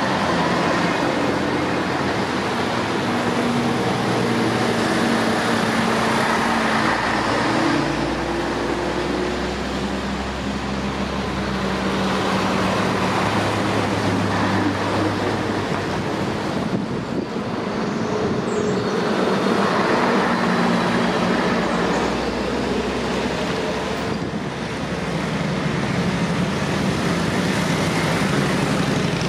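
Vintage Scania-Vabis Torpedo trucks driving past one after another, their diesel engines running steadily and swelling and fading as each goes by. Near the end a motorcycle with sidecar approaches.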